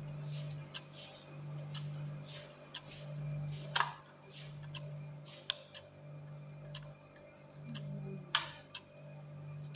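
Irregular sharp clicks, about a dozen at uneven spacing, with two louder ones near the middle and near the end, over a steady low hum.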